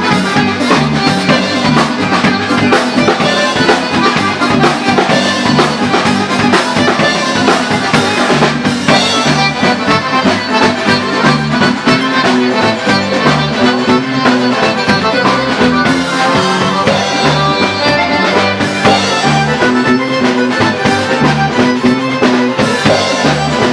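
Live Balkan band music from a tamburica ensemble: piano accordion, plucked tamburicas, electric bass and drum kit playing together with a steady beat.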